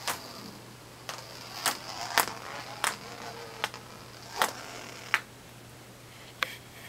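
A heavy ball rolling down through flexible plastic pool tubing: a faint rolling rush from the ball's friction in the tube, broken by about nine irregular knocks and clacks as it rattles along.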